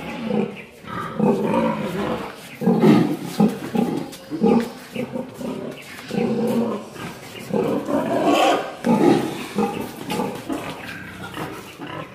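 Pigs grunting in repeated deep bouts while a boar mounts a sow to mate, fading near the end.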